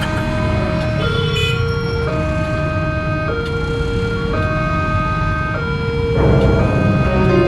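Railway level-crossing warning alarm sounding a two-tone electronic signal, alternating between a higher and a lower tone about once a second, the warning that a train is approaching. Motorbike and road traffic run underneath and grow louder about six seconds in.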